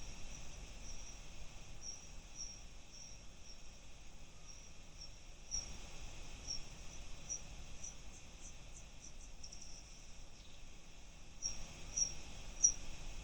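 Bat echolocation calls from an ultrasonic recording, pitched down into hearing range: short chirps at about two a second, which speed up into a rapid run of sweeping calls about halfway through, the feeding buzz of a bat closing in on an insect, then slow again.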